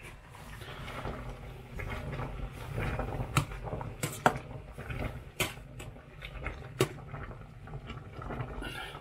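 Slotted metal spatula pushing nettle leaves down into a stainless steel pot of boiling water, clinking sharply against the pot several times over a steady low bubbling rumble.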